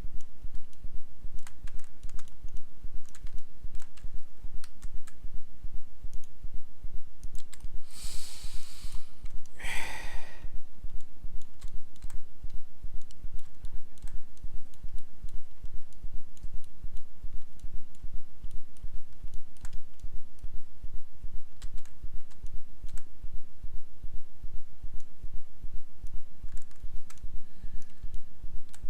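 Scattered mouse clicks and keyboard keystrokes from someone working at a computer, over a steady low electrical hum that pulses evenly. Two brief louder rushes of noise come about eight and ten seconds in.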